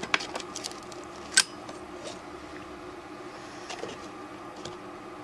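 Light clicks and taps of a plastic model train caboose and its parts being handled, with one sharper click about a second and a half in, then a few faint ticks.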